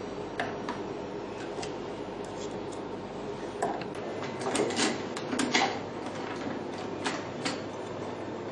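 Scattered light clicks and knocks of a PDT light arm being fitted into a beauty machine and fastened by hand, with a cluster of clicks about four to six seconds in.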